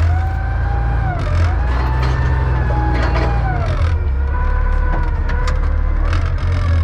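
John Deere 444 wheel loader's engine running under load, revving up and down so that a whine rises, holds and falls in pitch a few times, with a few sharp knocks.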